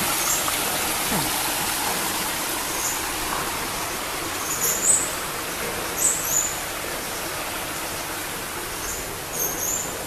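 Small stream running over rocks: a steady rushing that slowly fades. Short high bird chirps, several in quick pairs, break in about five times, the loudest around the middle.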